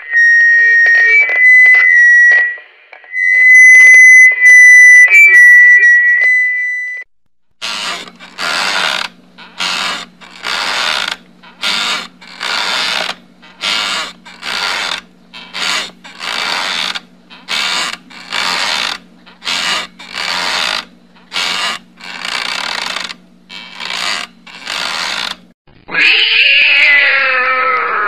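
Microphone feedback: a high-pitched whistling howl that wavers slightly in pitch for about seven seconds. Then a wooden rocking chair creaks rhythmically, about once a second, some twenty times over a low steady hum. Near the end a cat yowls, one long cry falling in pitch.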